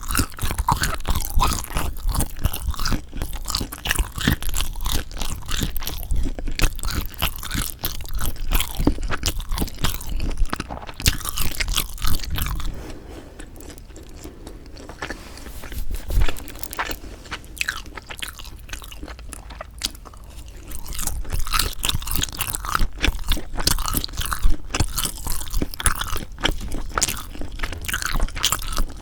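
Close-miked chewing and biting of sundae (Korean blood sausage), with wet, crunchy mouth sounds. It softens for several seconds near the middle, then picks up again.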